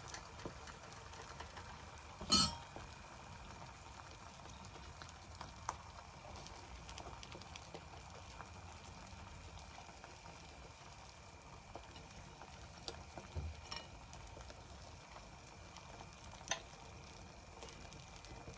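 Beaten eggs frying in oil in a pan, a soft, steady sizzle. A few sharp knocks and clinks break through it, the loudest about two seconds in.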